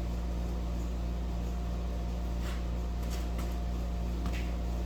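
Steady electric hum of a room air conditioner running, with a few faint light clicks in the middle.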